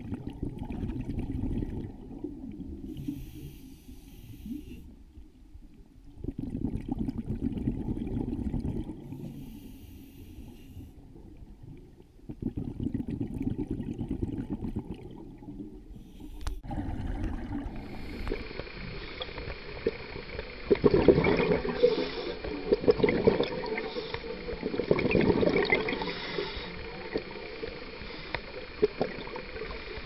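Underwater sound from a scuba diver's camera: a short high hiss of a breath drawn through the regulator alternating with a longer low bubbling rumble of exhaled air, about every six seconds. After a sharp click about two thirds of the way in, a louder underwater recording with more bubbling and surge takes over.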